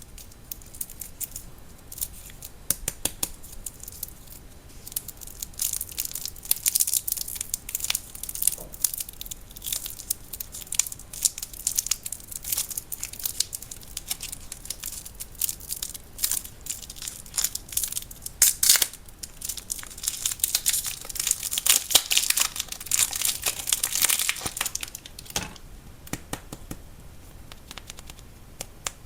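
Crinkling and rustling of a lollipop's plastic wrapper, close up, full of sharp crackles. The crinkling is thickest about six to eight seconds in and again from about twenty to twenty-five seconds in.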